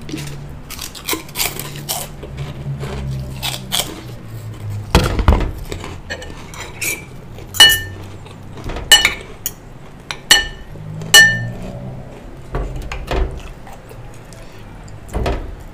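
Steel spoon and fork clinking and scraping against a ceramic bowl and plate, with four sharp ringing clinks in the middle. Glass clinks from a jar being handled near the start.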